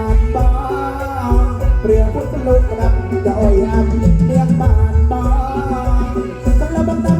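Loud amplified folk band music with a steady bass-drum beat and an instrumental melody over it.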